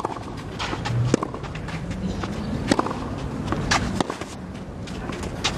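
Tennis rally on a clay court: several sharp racquet-on-ball strikes about a second or so apart, with players' shoes scuffing and sliding on the clay between shots over a low crowd background.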